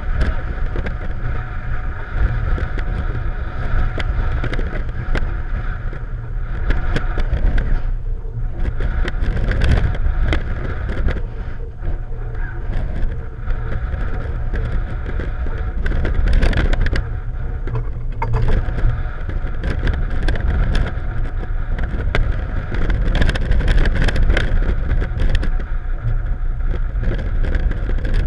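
Twin outboard motors on a rigid inflatable boat running steadily, under a heavy rumble of wind on the microphone. Frequent short knocks come through as the hull rides the chop.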